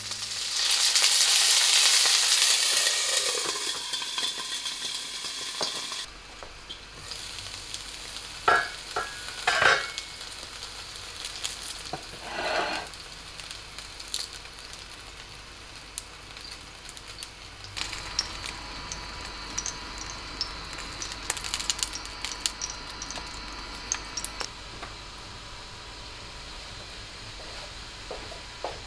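A loud hiss of water hitting a hot non-stick pan of frying gyoza dumplings. It flares up at once and dies down over a few seconds as they begin to steam-fry. A few short knocks and a lighter fizzing frying sound follow.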